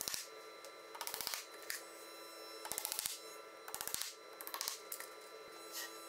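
Small hammer tapping glued wooden dowels into holes in a tabletop, in several short runs of quick light taps, over a faint steady hum.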